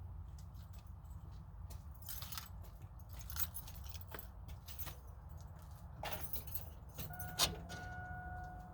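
Keys jangling, with light metallic clicks and one sharp click about seven seconds in. Soon after, a steady electronic tone starts and holds.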